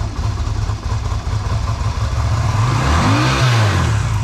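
1995 Yamaha Virago 250's V-twin engine idling on its newly fitted carburetor, then revved once a little over two seconds in, the pitch rising and falling back to idle. It takes the throttle cleanly without stumbling.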